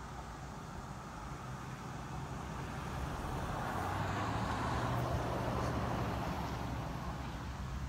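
A road vehicle driving past: its tyre and engine noise swells to a peak about halfway through, then fades away.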